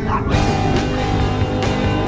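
Background music, growing fuller about a third of a second in.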